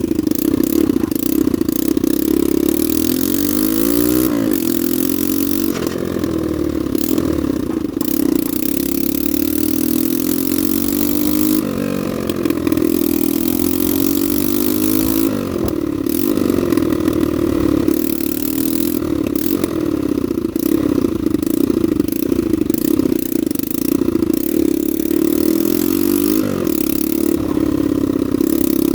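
Honda NSF100's small single-cylinder four-stroke engine running steadily, its note rising and falling again with a handful of throttle blips.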